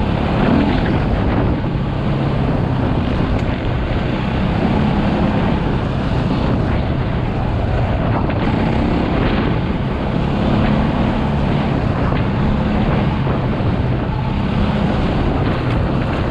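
KTM 450 EXC's single-cylinder four-stroke enduro engine running under way, its note rising and falling with the throttle, with heavy wind buffeting on the microphone.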